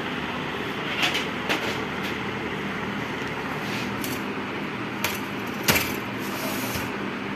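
Several light clicks and knocks of a monitor's metal chassis and plastic parts being handled and fitted back onto the LCD panel, about five of them, the loudest near the end, over a steady hum.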